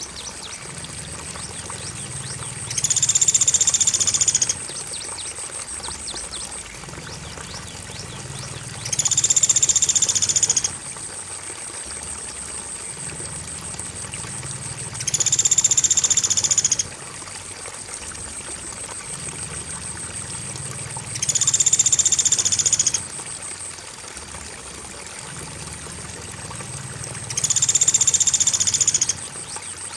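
Repeated call of a pelatuk beras bird in a bird-training mix, sounding five times about every six seconds, each call lasting about a second and a half. Under it runs a steady high cricket chirring and flowing water.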